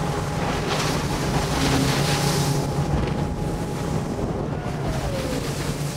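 Stealth Cat speedboat under way at speed: wind buffeting the microphone over the steady drone of its engine, with louder rushes of wind about a second in and again around two seconds in.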